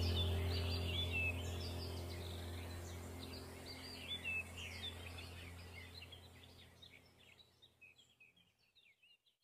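Ambient background track of birds chirping over a low steady drone, fading out gradually to silence by the end.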